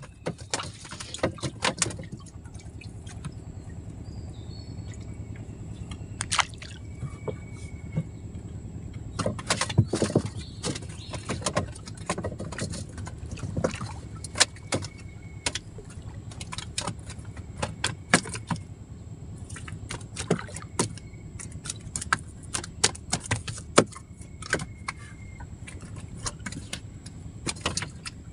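Irregular small clicks and knocks of a handline and gear being handled in a small wooden boat, some in quick clusters, over a steady low rumble.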